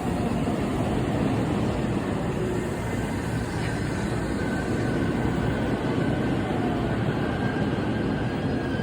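313-series electric train running into the station platform, a steady rumble of wheels on rail with a faint, thin brake squeal coming in a few seconds in as it slows.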